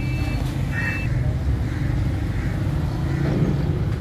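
Road traffic crossing the bridge overhead: a steady low engine rumble. A vehicle's high electronic beep sounds twice in the first second.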